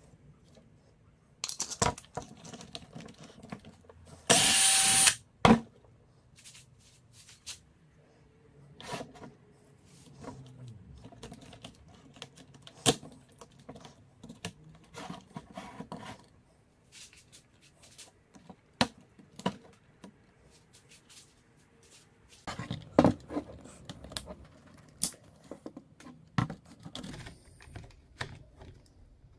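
Clicks, taps and knocks of small metal and plastic parts being handled and fitted together: a flap disc, its nut and a plastic drill attachment. About four seconds in there is one loud burst of noise lasting under a second.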